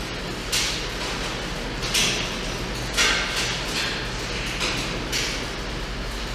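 Rain hissing steadily on a falcon nest box, broken four times by sudden short splashes of wind-driven water blowing in, each about half a second long.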